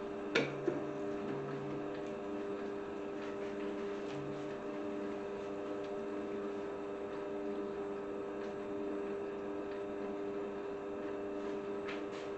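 Planetary stand mixer running steadily at low speed, a constant motor hum, as its flat beater blends milk into muffin batter. A brief click about half a second in.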